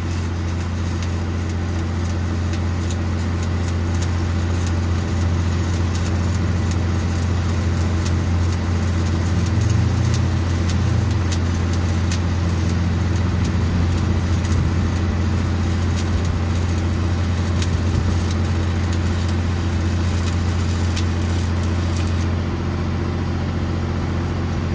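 Stick welding arc crackling steadily as a 7018 electrode burns in, the crackle stopping about two seconds before the end when the arc is broken. A steady engine drone runs underneath.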